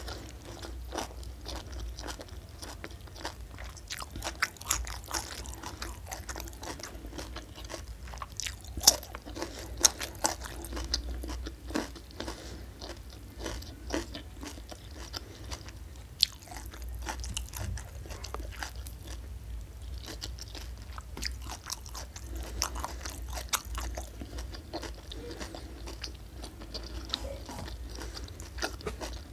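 Close-miked chewing and biting of a hand-eaten meal of fish, rice and vegetables: wet, crisp mouth clicks and crunches, with a few louder crunches about a third of the way in, over a faint steady low hum.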